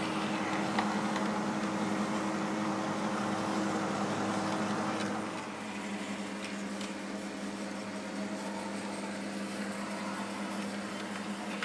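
Sound decoder of a model railcar playing a steady diesel engine drone through a small onboard speaker. About five seconds in the engine note drops and softens.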